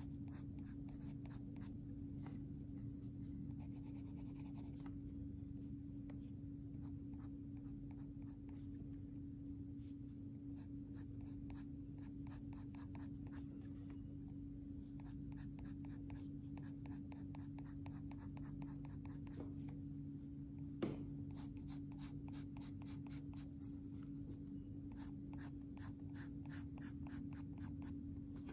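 Pencil scratching across drawing paper in quick, closely repeated shading strokes, over a steady low hum. One light knock about three-quarters of the way through.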